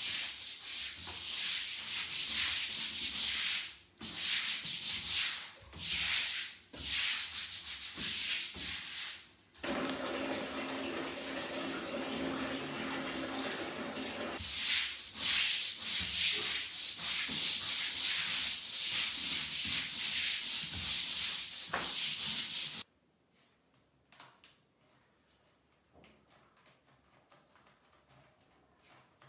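Long-handled scrubbing brush scouring a wet, soapy tiled floor in repeated back-and-forth strokes, with a steadier stretch in the middle. It cuts off suddenly about three quarters of the way through, leaving only faint clicks.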